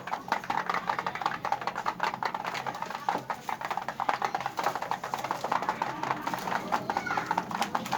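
Puter doves (Barbary doves) in a breeding flock: a dense, busy mix of bird calls and quick clicking and clattering, over a faint steady hum.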